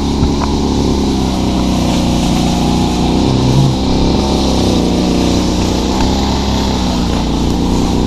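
A steady engine-like drone with a dense low hum, holding an even level with only slight swells.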